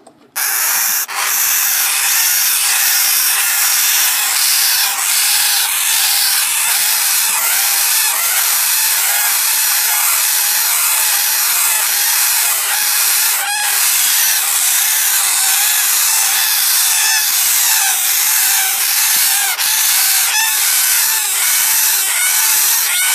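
Two-and-a-half-week-old red-rumped parrot nestlings calling together in the nest box: a loud, continuous, raspy chorus of overlapping short cheeps that rise and fall, with a couple of sharp clicks.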